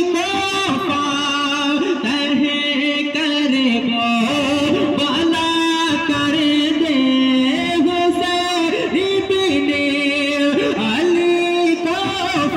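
A man singing a naat into a microphone, drawing out long melismatic notes that waver and slide in pitch between phrases.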